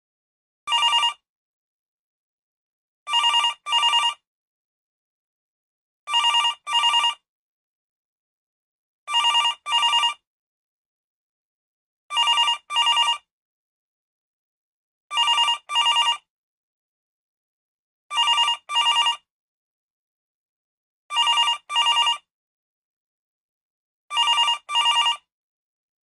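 Desk telephone bell ringtone: the bell rings in pairs of short bursts, a double ring repeating about every three seconds with silence between.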